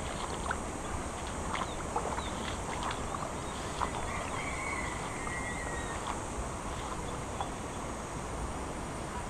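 Outdoor ambience by the water: scattered small splashes and clicks over a steady, high-pitched insect drone, with a short warbling bird call about four seconds in.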